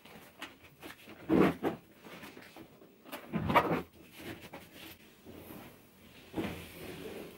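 Handling noises of a bag being packed by hand: rustling clothes and a pillow, with scattered soft bumps and two louder ones about one and a half and three and a half seconds in.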